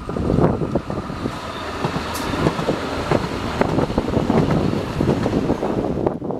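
SIG articulated light-rail tram passing close by on ballasted track, its wheels running on the rails, mixed with wind on the microphone.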